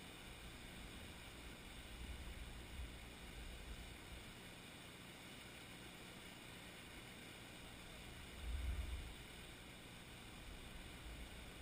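Faint steady hiss with a few low rumbles of wind buffeting the microphone, one about two seconds in and the loudest about eight and a half seconds in.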